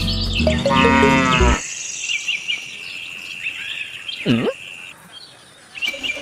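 A cow moos once, a long call about a second in, over the end of background music that stops. Birds chirp and a steady high insect trill runs on behind, with a short lower call about two-thirds of the way through.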